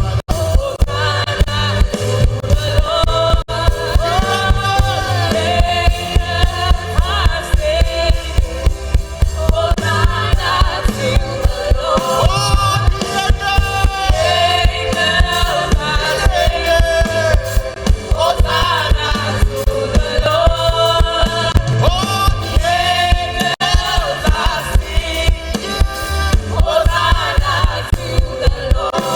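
Gospel worship song: sung melody over a band with heavy bass and a steady drum beat.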